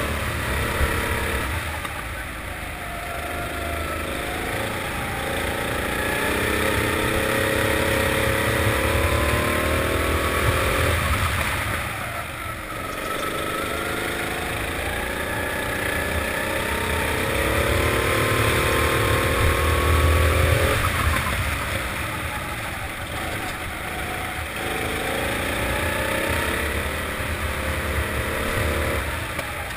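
A four-stroke kart engine heard from on board, climbing in pitch as it accelerates and dropping away each time the throttle comes off for a bend, three times over.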